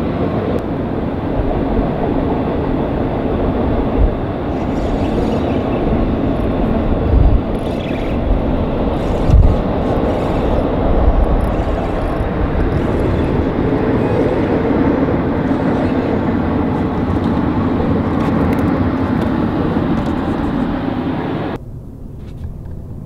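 A train passing close by with a loud, steady rumble and a few louder knocks. The rumble cuts off suddenly near the end.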